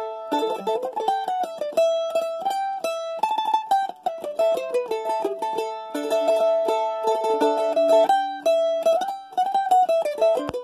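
An A-style mandolin played solo with a pick: an instrumental melody of changing notes, the longer notes kept sounding by rapid repeated picking.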